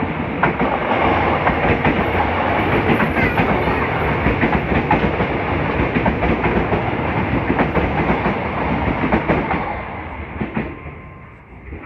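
A passenger train passing close by on the track: a loud steady rumble with the clatter of wheels over the rails, fading away about ten seconds in.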